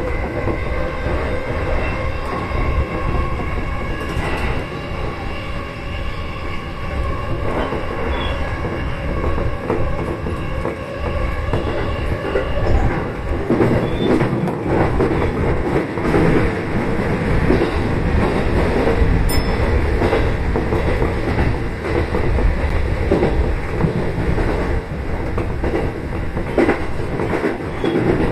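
Electric commuter train running on the Negishi Line, heard from the driver's cab: a steady rumble of wheels on rail with a steady whine in the first half, a heavier rumble about halfway through as it passes through a short tunnel, and a few clicks over rail joints.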